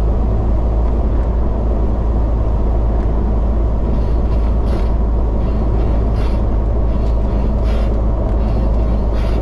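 Steady loud driving rumble of a vehicle at highway speed, heard from inside the cab: engine and tyre noise on wet pavement. Faint short swishes come about every second and a half from about four seconds in.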